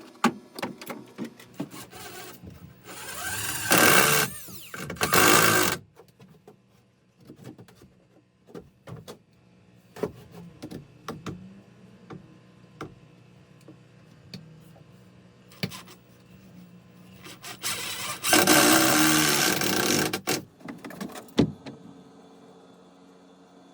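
A handheld power tool run in three short bursts of one to two seconds, the first dying away with a falling pitch, with scattered clicks and knocks of wood and tools being handled in between.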